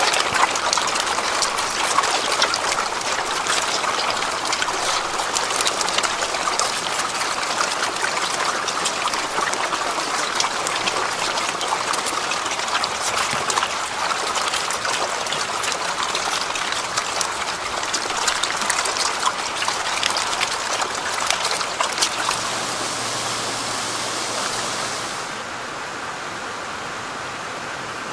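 A dense mass of farmed eels feeding at a block of paste feed, churning the water in a constant wet splashing full of small sharp splashes and crackles. About twenty-five seconds in, it gives way to a smoother, steadier rush of water from paddlewheel aerators churning the pond.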